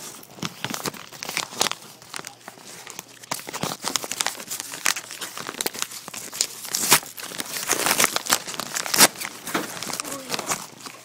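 Plastic packaging crinkling and tearing as it is unwrapped, a run of irregular sharp crackles, loudest in the second half.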